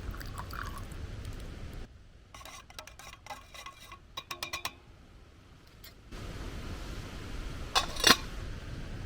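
Wind buffeting the microphone, giving way for a few seconds to a run of small clinks of a cup and utensils, several a second at their busiest; two sharp clicks near the end as the wind comes back.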